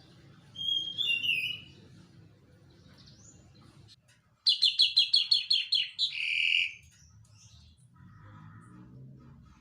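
Songbird singing: a couple of short chirps about half a second in, then near the middle a fast, loud run of about eight sharp high notes ending in a harsher, lower note.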